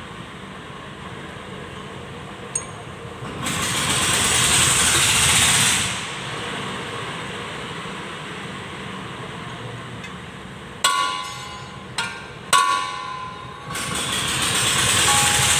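A vehicle engine swells up and fades away twice. Between the two swells come three sharp metal clanks, each ringing briefly, as metal parts knock together.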